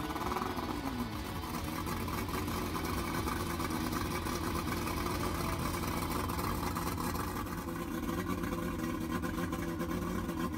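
Evinrude 200 Vindicator V6 two-stroke outboard running steadily at idle out of the water, fed by a garden hose, its pitch briefly rising and falling about half a second in.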